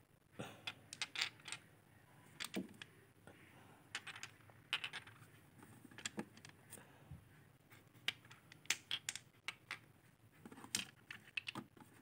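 Small glass nail polish bottles clicking and clinking as they are picked up and set down among each other: quiet, irregular sharp clicks.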